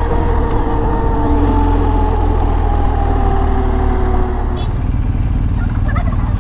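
Motorcycle engine running at cruising speed with a deep low rumble and wind rush on the bike-mounted camera's microphone. The engine note eases slightly lower, then turns quieter about four seconds in. Near the end come a few faint calls from wild turkeys on the road.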